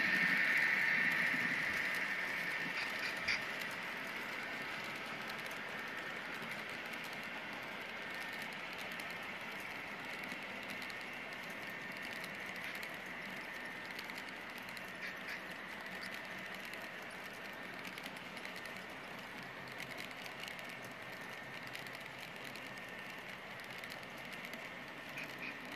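Model train passenger cars rolling along layout track: a steady rolling hiss and hum with light, irregular clicks of the wheels over the rail. Louder in the first couple of seconds as the locomotive goes by, then settling a little quieter as the cars follow.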